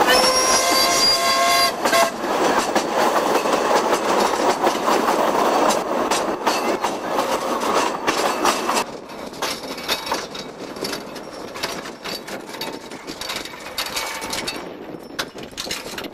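Narrow-gauge train whistle sounding for about two seconds, then the train running along the track with wheels clicking over the rail joints. The running noise drops away about nine seconds in, leaving quieter clicking.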